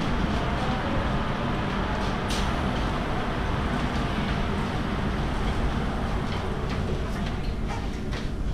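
Steady low rumble inside a car of the Montserrat rack railway (Cremallera de Montserrat), with a sharp click about two seconds in and a few lighter clicks near the end.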